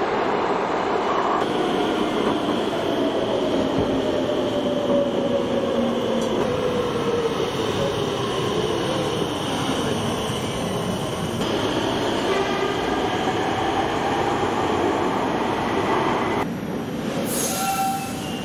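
Bombardier-built Rotterdam metro trains in underground stations: steady rumble and wheel-on-rail noise, with an electric motor whine that falls slowly in pitch as a train slows into the platform. The sound changes abruptly a few times, and a brief tone sounds near the end.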